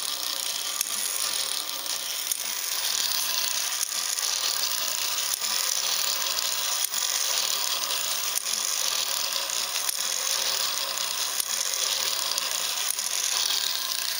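Ornithopter wing gearbox driven slowly by a small eSky electric motor: a steady whir of motor and spur gears, with a click every second or so that is the glide-lock pawls engaging.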